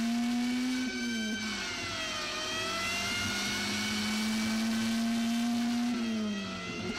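Car engine running at high revs on an old film soundtrack during a city street chase, a steady high drone that sinks in pitch about a second and a half in and sinks again near the end.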